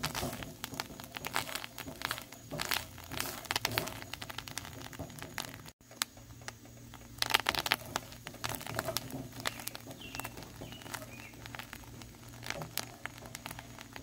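Wooden spatula stirring and scraping crumbled egg yolks around a cast iron skillet, giving irregular scrapes and short crackles. The yolks are being cooked down toward charring to render egg yolk oil.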